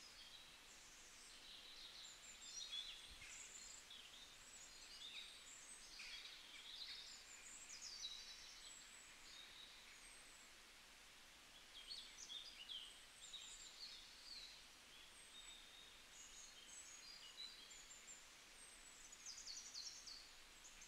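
Near silence, with faint high-pitched chirps scattered through it.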